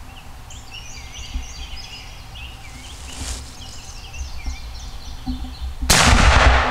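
Small songbirds chirping over a low rumble, then near the end a sudden loud shotgun blast followed by loud rustling as the gun and camera move.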